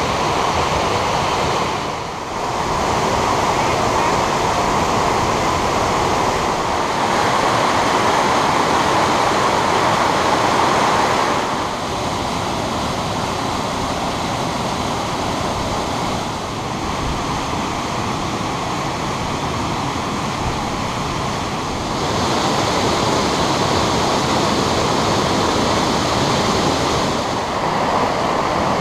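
Mountain waterfall cascading over rock into pools: a loud, steady rush of falling water. Its tone changes abruptly a few times.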